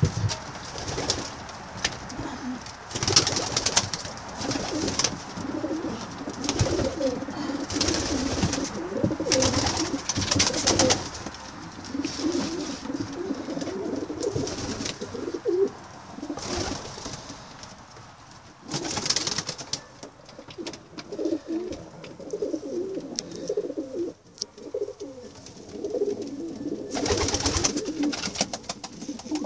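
Homing pigeons cooing, a low warbling that comes and goes over and over, with short bursts of rustling now and then.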